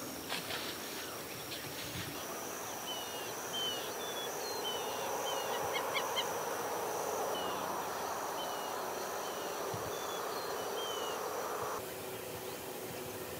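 Outdoor woodland sounds: short, falling bird chirps repeated every half second or so over a steady high insect buzz, which cut off abruptly near the end.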